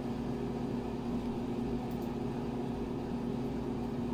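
Window air conditioner running with a steady, even hum.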